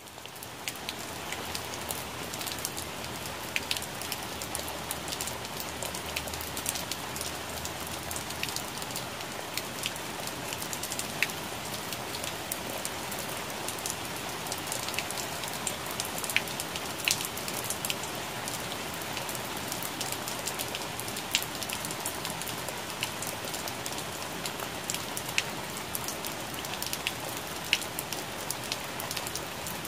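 Steady rain falling on plant leaves: an even hiss, dotted with the sharp ticks of single drops striking leaves close by. It fades in over the first second.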